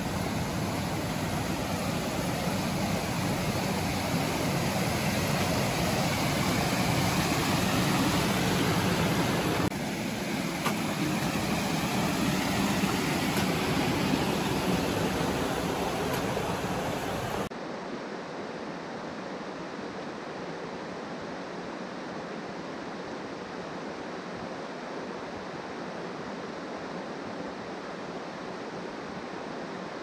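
Steady rush of flowing creek water. Just past the middle it cuts abruptly to a quieter, thinner rush.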